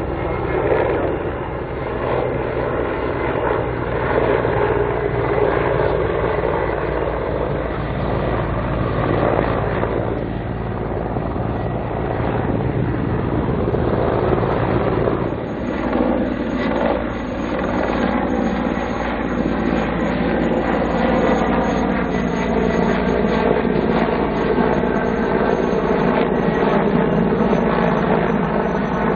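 Mil Mi-24 attack helicopter flying past, its main rotor beating and its twin turboshaft engines running steadily. Loudness dips briefly about halfway through.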